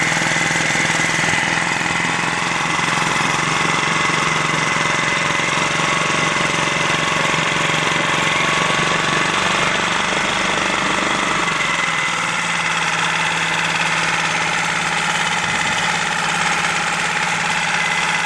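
2013 Lehr 5 hp propane-fuelled four-stroke outboard motor running steadily, a good-running engine that is quiet for a four-stroke.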